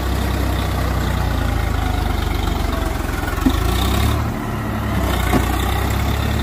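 Swaraj 744 tractor's three-cylinder diesel engine running steadily under load as the tractor works to pull free of deep paddy-field mud. The engine note dips briefly about four seconds in, with two short knocks around it.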